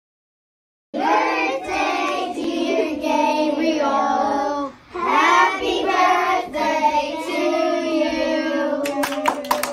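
A class of young children singing a birthday song together. It starts about a second in, pauses briefly midway, and a few claps come near the end.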